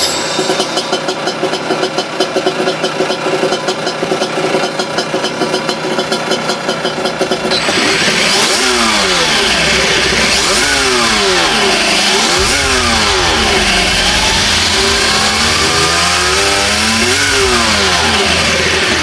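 Simulated motocross motorcycle engine sound played from an ESS ONE engine-sound module's speaker. It idles steadily at first, then from about eight seconds in it is revved up and down about five times as the throttle is worked.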